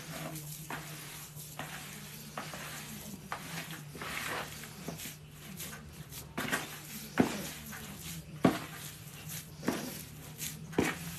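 Boilie dough being mixed and kneaded by hand in a bowl: irregular squishing and scraping, with a few sharp knocks in the second half. A steady low hum runs underneath.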